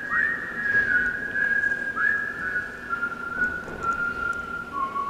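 A person whistling a slow tune: a quick upward-sliding note about two seconds in, then long held notes that step gradually down in pitch toward the end.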